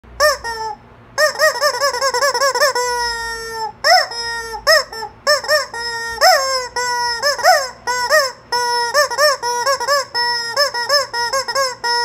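Rubber chicken toy being squeezed over and over, giving rapid runs of short honking squawks that rise and fall in pitch, with a few longer drawn-out squawks in between.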